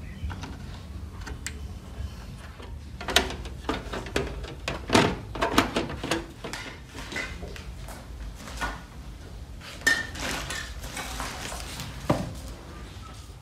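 Metal cover and chassis of a DVD player being handled and fitted together: a run of metallic clanks, clicks and scrapes about three to seven seconds in, then a couple of single knocks near the end.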